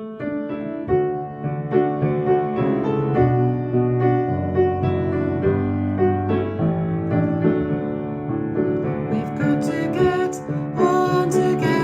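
Recorded song accompaniment starting abruptly with a piano introduction of steady chords; about nine seconds in, crisp percussion joins and the arrangement fills out.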